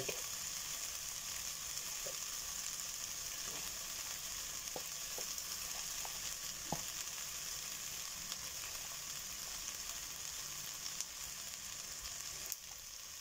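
Steady sizzling of browned onions and flour-coated beef chunks frying in an enamelled casserole pot, with a few faint ticks as beef pieces are dropped in.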